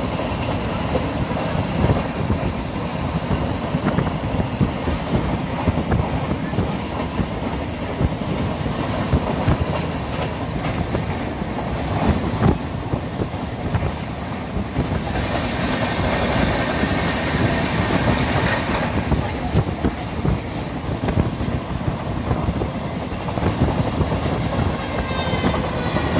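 Express passenger train running at speed, heard on board: a steady rumble of wheels on track with frequent rail-joint clicks (clickety-clack). There is a louder rushing stretch a little past halfway, and a faint high-pitched tone near the end.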